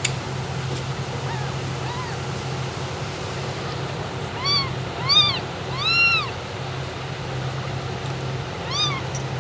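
Kitten meowing: two faint high mews early, then four louder mews in the second half, each rising and falling in pitch.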